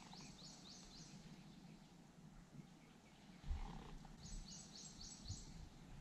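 A songbird singing a short phrase of about five quick, high, down-slurred notes, twice, the second time about four seconds in, over faint outdoor quiet. A single dull low thump sounds about three and a half seconds in.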